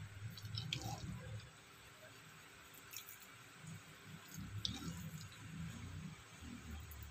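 Faint soft squishing of thick, mushy cooked rice-and-lentil bisi bele bath as a metal spoon scoops it in a pressure cooker, with a few light clicks of the spoon against the pot.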